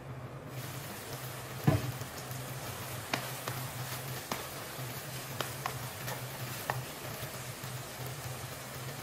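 Chicken adobo sizzling in a pan as its sauce reduces, stirred with a wooden spatula. The sizzle starts about half a second in; a sharp knock comes near two seconds in, followed by several lighter clacks of the spatula against the pan.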